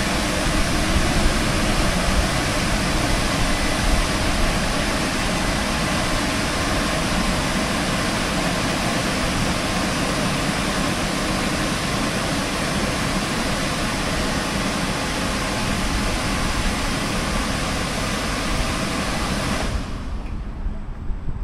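Rollover automatic car wash machine running with a loud, steady rushing noise, which stops abruptly near the end.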